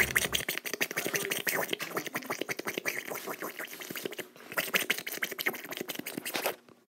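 Rapid, irregular crackling made of dense clicks, which dips briefly a little past the middle and cuts off abruptly near the end.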